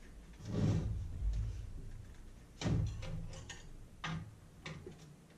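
Cordless drill/driver running in a few short bursts as bolts are backed out of an old Sony radio's case, with small clicks of handling in between.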